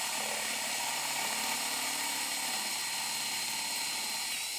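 Cordless drill with a 6.5 mm bit running steadily, drilling into a carbon-fibre hydrofoil mast under very light pressure. A steady high whine sits over a low hum that fades out in the second half.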